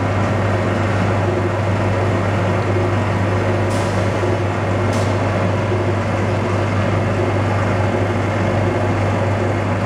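Vacuum homogenizing emulsifying mixer running: a steady, loud machine drone with a strong deep hum. Two faint high ticks come around four and five seconds in.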